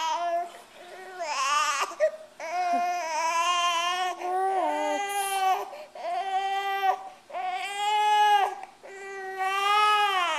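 Infant boy fussing and crying during tummy time: a string of drawn-out, high-pitched wails, each about a second long, with short breaths between them.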